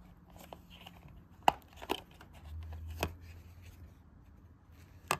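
Plastic Blu-ray case being handled: a few sharp clicks and taps, the loudest about a second and a half in.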